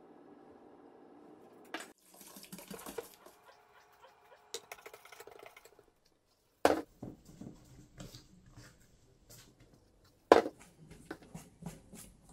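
Wire whisk stirring and scraping in a stainless steel mixing bowl as flour is sifted in for a yeast dough, with light clicks of metal on metal. Two sharp knocks stand out, one about a third of the way in and one near the end.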